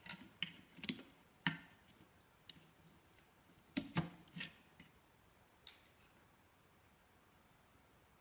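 A series of light clicks and knocks, about a dozen irregular strokes, loudest about a second and a half in and around four seconds, stopping after about six seconds. No compressor hum is heard.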